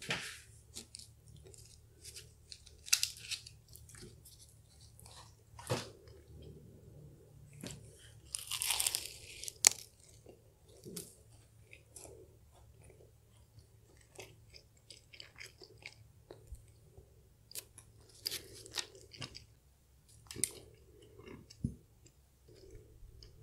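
Bites into a flaky-crusted Portuguese egg tart and chewing: scattered crisp crunches of the pastry among softer chewing, the longest and loudest crunch about nine seconds in.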